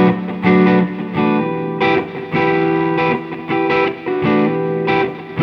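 Clean electric guitar tone from a Les Paul through a Bludotone tube-preamp amp: a short lick of picked notes and chords, each struck and left ringing into the next.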